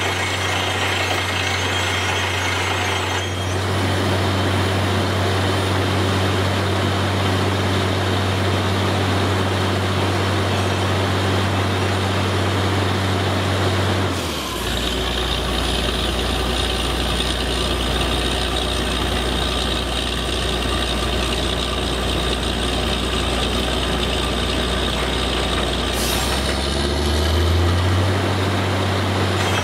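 Truck-mounted borewell drilling rig running under load: the engine and air compressor drone steadily with a constant hiss of compressed air. About halfway through the engine note drops lower, and near the end it rises back up.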